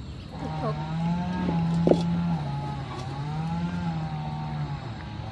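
An engine runs steadily, its pitch slowly rising and falling. A single sharp clank about two seconds in, as a steel wok is set onto a clay charcoal stove.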